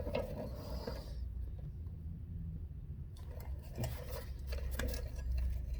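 Faint clicks and rustling of small parts and packaging being handled, over a steady low hum.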